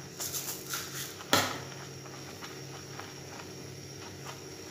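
Silicone spatula stirring sugar into hot milk in a nonstick pan: a few soft scraping strokes, then a sharp knock a little over a second in, over a steady low hum.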